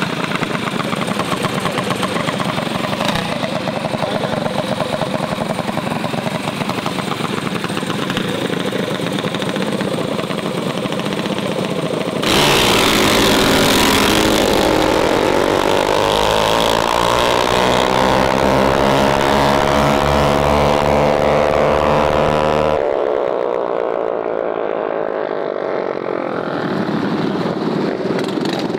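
Mini bike small engines running and revving, cut together from several clips; around the middle one engine climbs steadily in pitch, then drops off.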